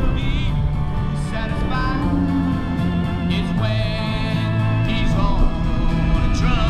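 Background music: a song with a wavering sung voice over held bass notes.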